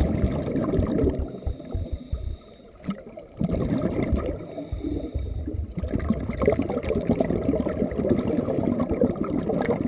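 Scuba regulator exhaust bubbles heard underwater: dense low bubbling and gurgling from a diver's exhalations, with a pause of about a second a little under three seconds in before the bubbling resumes.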